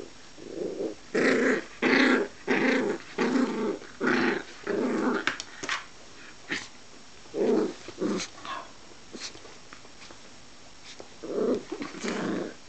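Swedish Vallhund puppy play-growling in a rapid series of short growls while tugging and biting at a cloth. The growls come less often, stop for a couple of seconds, then start again near the end.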